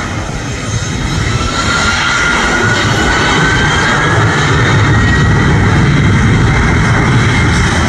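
Boeing 737-800 BBJ2's twin CFM56-7B turbofan jet engines spooling up on the take-off roll: a whine rising in pitch over the first few seconds over a low rumble, with the engine noise growing louder and then holding steady.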